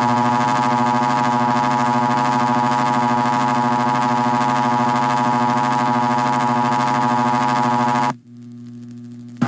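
Emergency Alert System attention signal in a mock alert: a steady, buzzy synthesized tone held for about eight seconds that cuts off suddenly, leaving a low hum, with a brief click near the end.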